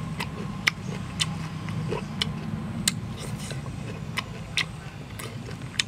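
Someone eating with chopsticks: sharp, irregular clicks and smacks of chewing and chopsticks, one or two a second, over a steady low rumble.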